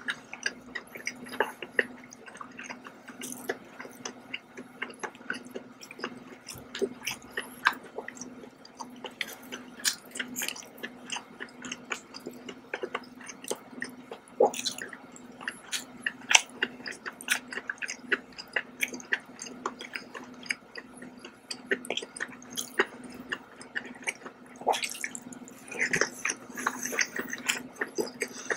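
Close-miked chewing of sauce-coated scallops: wet mouth smacks and many small sharp clicks in an irregular run. A steady low hum sits underneath.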